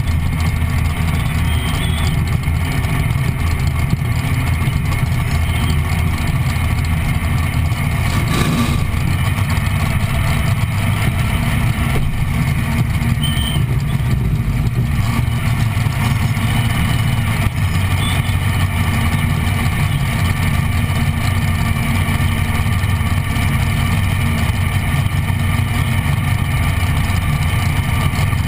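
Chevrolet-powered dragster's engine idling steadily and loud, holding an even pitch with no revving.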